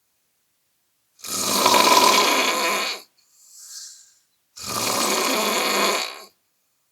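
A person snoring: two long snores of nearly two seconds each, the first starting about a second in, with a fainter breath between them.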